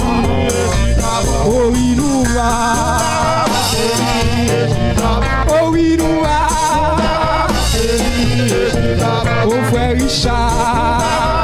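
Live gospel worship song: a men's vocal group singing with a lead voice, backed by a drum kit keeping a steady beat over a low bass line.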